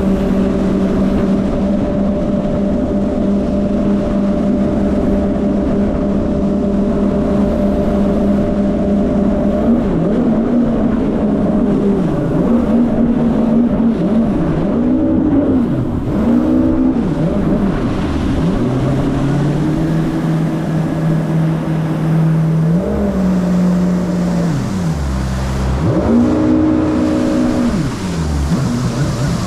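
Yamaha WaveRunner personal watercraft engine running under way. It holds a steady pitch for about ten seconds, then swoops up and down repeatedly, over a constant rush of wind and water.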